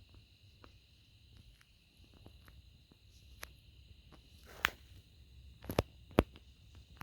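Faint steady insect chirring with scattered sharp snaps and crackles. Three louder ones come in the second half, the last the loudest.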